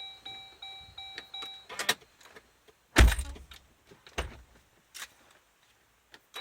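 Jeep's dashboard warning chime repeating about three times a second, stopping about two seconds in. Then a few sharp clicks and clunks, the loudest a heavy thump about three seconds in, and the engine does not crank or start.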